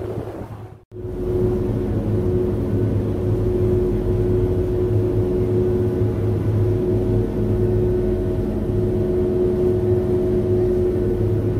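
Staten Island Ferry's engines running with a steady low drone and hum as the boat pulls into its slip. The sound cuts out for an instant about a second in, then carries on unchanged.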